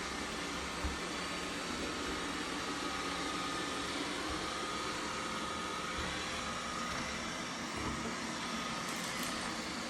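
Robotic vacuum cleaner running with a steady whirring hum and a faint high whine, with a single low knock about a second in.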